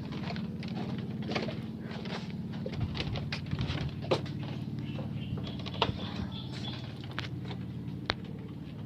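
Outdoor ambience: a steady low hum under scattered clicks and taps, with faint bird calls.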